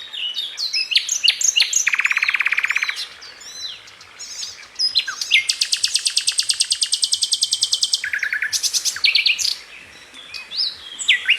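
Several songbirds singing together: quick high chirps and whistles, broken by rapid even trills, one lower trill lasting about a second and a longer, higher trill of nearly three seconds midway.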